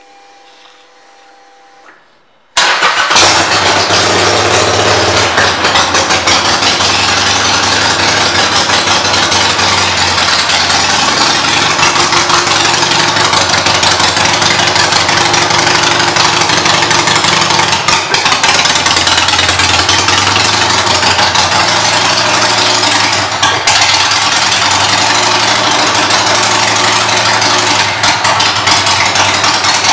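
2011 Harley-Davidson Sportster 883 SuperLow's air-cooled V-twin, fitted with aftermarket pipes and an aftermarket air cleaner, starting up about two and a half seconds in and then idling steadily and loudly.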